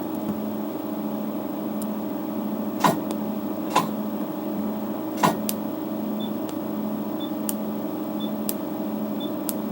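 ND:YAG laser unit running with a steady hum, with three loud sharp snaps a few seconds in as the laser pulses strike thick plastic, then fainter clicks. Short high beeps repeat about once a second in the second half.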